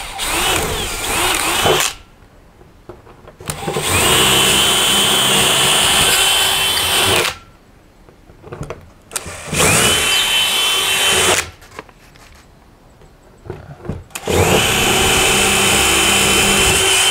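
Cordless drill running a long 3/16-inch exploratory bit up through a vinyl porch ceiling, probing for framing above it. The drill runs in four bursts with short pauses between them. Each burst starts with a rising whine that levels off.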